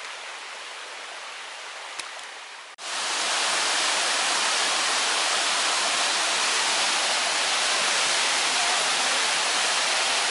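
A creek's water running over rocks as a soft, steady hiss, with a single click about two seconds in. Then, abruptly, a waterfall's steady rush, much louder, cascading over rocks for the rest.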